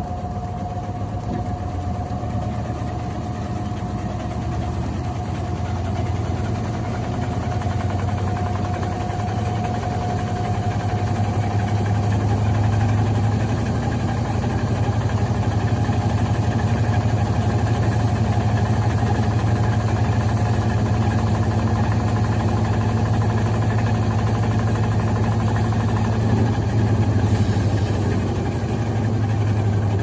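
Electrolux LTC15 top-loading washing machine running, a steady motor hum that builds gradually over the first dozen seconds and then holds level, with a faint whine near the start that fades away.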